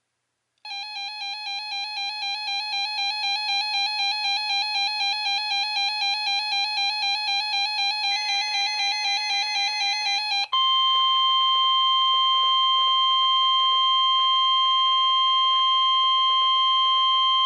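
A warbling electronic alarm tone, wavering rapidly about five times a second, sounds for about ten seconds. It gives way to the steady 1050 Hz NOAA Weather Radio warning alarm tone, held on one pitch over faint radio static; this is the weekly test of the alarm that switches on weather radio receivers.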